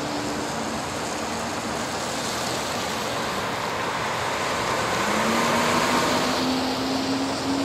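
Steady rush of city street traffic, swelling briefly about five to six seconds in as a vehicle goes by.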